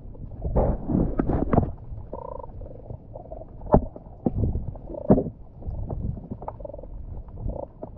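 Muffled underwater sound picked up by a camera in a waterproof housing: irregular gurgles and several sharp knocks, the loudest about four and five seconds in.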